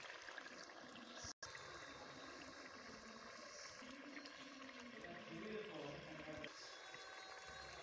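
Curry gravy simmering in a pot, a faint bubbling.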